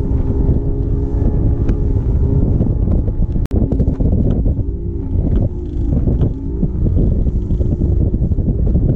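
A boat's motor running under way, with heavy wind buffeting on the microphone.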